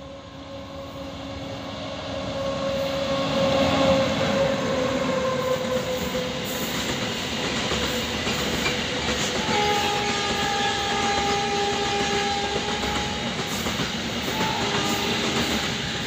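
Electric goods train with WAG-class freight locomotives passing at speed: long horn blasts that sag slightly in pitch as the locomotive goes by, then the steady rumble and wheel clatter of container wagons, with another long high horn-like tone from about ten to thirteen seconds in. The whole sound grows louder over the first four seconds as the train comes close.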